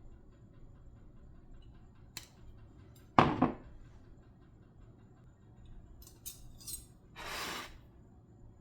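Kitchen utensils and dishes knocking and clinking, with one loud clatter about three seconds in and a short rush of noise near the end.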